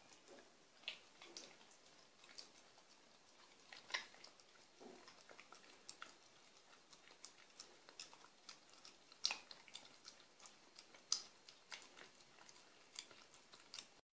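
Pembroke Welsh corgi licking peanut butter off a metal spoon: irregular wet smacks and clicks of tongue and mouth, a few of them louder.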